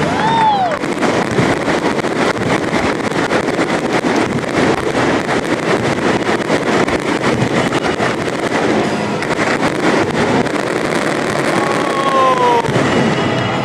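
Victory fireworks display: a dense, continuous crackling and popping of many shells going off together.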